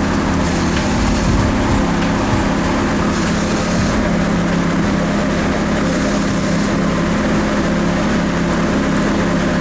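Car engine running at a steady speed on a chassis dyno, a loud constant drone that neither rises nor falls in pitch, as a live fuel map is tuned.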